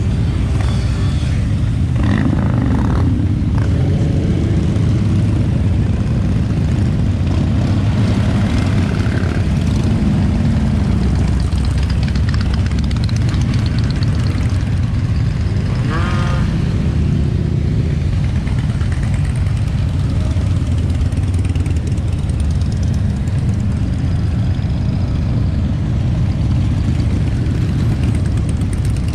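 A steady stream of motorcycles, mostly Harley-Davidson V-twins, riding past with engines running, and a rev rising in pitch about two seconds in and again around sixteen seconds in.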